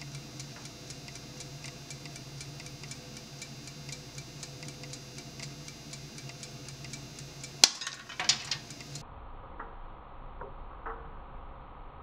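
Coffee beans roasting in a toaster oven: a steady run of small ticks over a low hum, then a sharp, loud crack about seven and a half seconds in, followed by a few more cracks. After that only sparse faint clicks remain.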